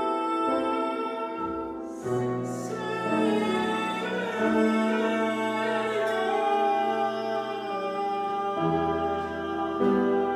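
Voices singing long held notes as a warmup, over a sustained chordal accompaniment; the chord changes about two seconds in and again near the end. A short breathy noise cuts in about two seconds in.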